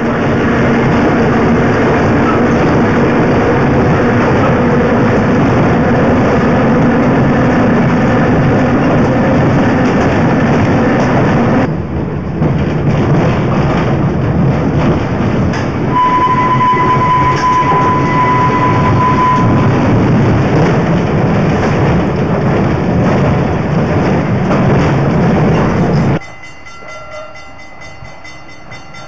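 A vintage electric trolley car running on rails, heard from inside the car: a loud, steady rumble of wheels and running gear. About halfway through, a steady high tone is held for about three seconds. Near the end the noise drops suddenly to a much quieter background.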